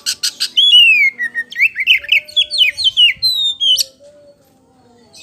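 Oriental magpie-robin singing: a quick run of harsh ticking notes, then a loud whistled phrase. The phrase has a long falling slur followed by a string of short rising notes, and it stops about four seconds in.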